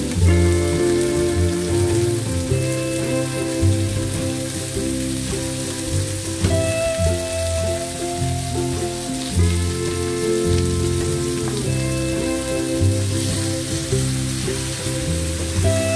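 Chicken drumsticks and sliced onions sizzling as they sear in a frying pan. Background music with held chords that change every few seconds plays over it.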